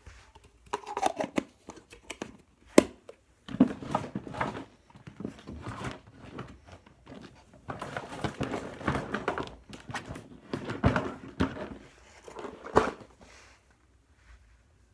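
Rustling and handling noises close to the microphone, with a few sharp knocks, a loud one about three seconds in and another near the end.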